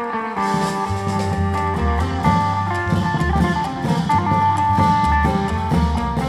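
Isan-style long-drum band music (klong yao prayuk): a plucked electric lute melody, with drums and cymbals joining just after the start and a heavy bass line from about a second in.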